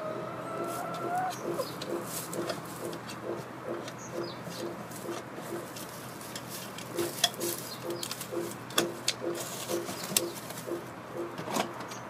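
Hens clucking in a coop: a drawn-out rising call ends about a second in, followed by a steady run of low clucks at about three a second. A few sharp taps stand out in the second half.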